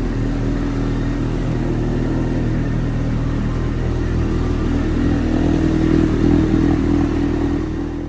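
Honda CB1300's replacement inline-four engine running steadily after its first start-up, rising a little in level a few seconds in.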